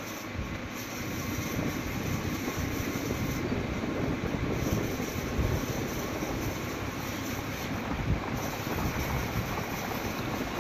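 Steady rush of wind and road noise on a moving motorcycle.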